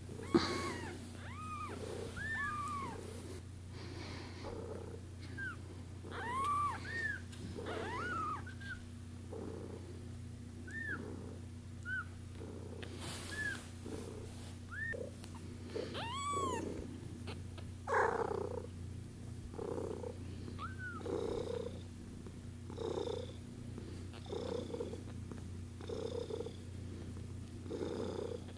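One-week-old kittens mewing: thin, high cheeping cries, each rising and then falling in pitch, coming thick and fast through the first twenty seconds. From about eighteen seconds on, a softer low pulse repeats about once a second.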